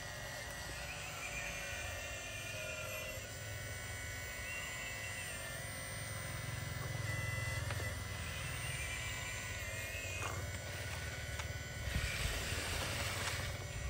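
Hitachi RC excavator's motors whining steadily over a low hum as it slews and lifts its boom, the pitch dipping briefly a few times as the load changes. A scraping hiss comes near the end.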